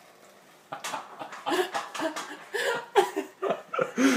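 A person laughing in a string of short bursts, starting about a second in.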